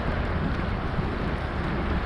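Wind blowing across the microphone, a steady rumbling noise.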